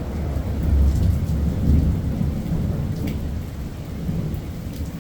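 Heavy tropical rainy-season downpour pouring steadily, with a deep low rumble that swells about one to two seconds in.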